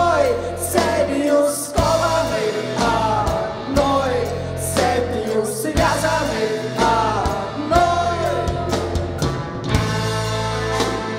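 Rock band playing live, an instrumental stretch between sung lines: steady bass and drums under a melody that slides downward about once a second.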